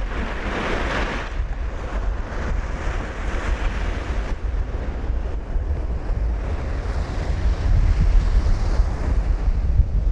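Sea waves breaking and washing on a shore, with a louder surge of surf in the first second or so. A strong low rumble of wind buffets the microphone throughout.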